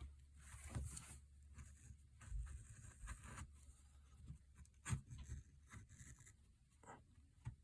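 Faint scratching and light clicks of small hand tools working on a phone's back glass, in short irregular strokes with one sharper click about five seconds in.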